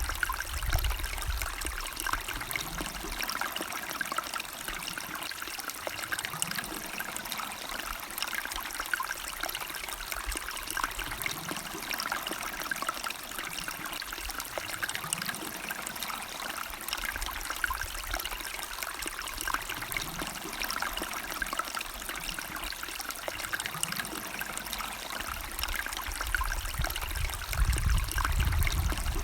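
A river or stream flowing: a steady rush and trickle of water. A low rumble sits under it at the start and comes back stronger near the end.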